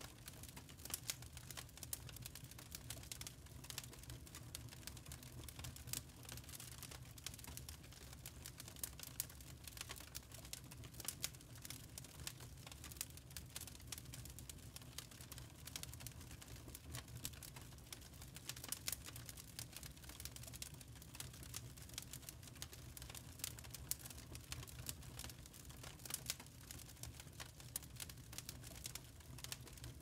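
Lump charcoal burning and crackling: a dense, irregular run of small clicks and pops over a low steady rumble.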